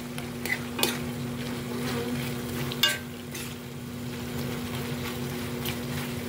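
Metal spoon stirring beef strips and sliced onion in sauce in a metal pan, with a low sizzle, a steady low hum underneath and several clinks of the spoon against the pan, the loudest about three seconds in.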